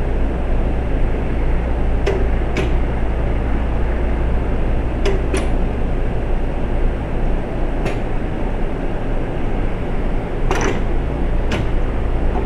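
Automated stopcock assembly station running: a steady machine hum and noise, with about eight sharp mechanical clicks and clunks every second or few, some in pairs about half a second apart.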